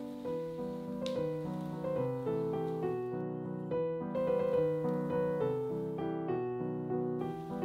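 Background piano music: a steady melody of single notes over lower accompanying notes.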